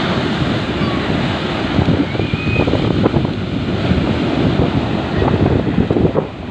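Big surf breaking and rushing up a beach in rough, stormy weather, with strong wind buffeting the microphone.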